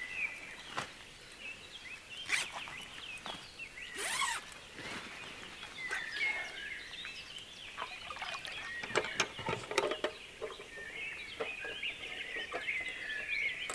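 Small birds chirping and twittering in a steady chorus, with a few scattered clicks and rustles.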